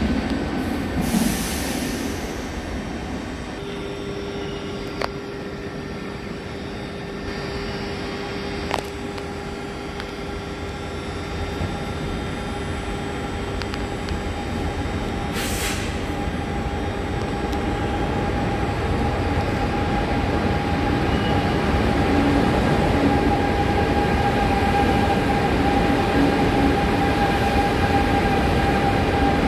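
Double-deck RER A electric train pulling into an underground station platform, with a steady rumble and electric whine that grow louder as it draws alongside. There are a few sharp clicks and a short hiss about halfway.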